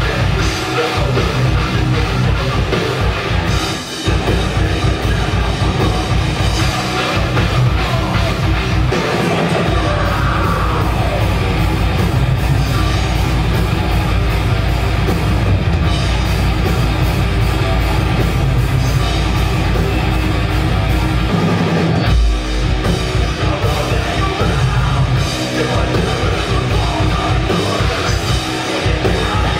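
Death metal band playing live: heavily distorted guitars and bass over fast, dense drumming, with brief breaks about four seconds in and again around twenty-two seconds.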